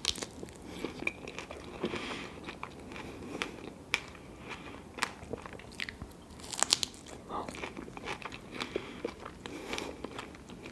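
Close-miked eating sounds of a person biting into and chewing a fresh fig with cream, with many short wet clicks and smacks.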